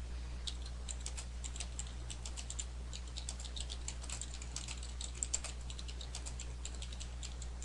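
Typing on a computer keyboard: quick, irregular key clicks, several a second, over a steady low hum.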